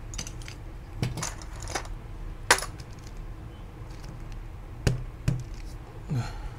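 Keycaps being pulled off a mechanical keyboard with a keycap puller: irregular sharp plastic clicks and clacks as the caps pop free and are set down, a few of them louder.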